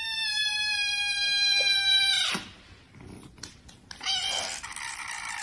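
Kitten meowing: a long meow that slides slightly down in pitch and stops about two seconds in, then a second long meow starting near the end.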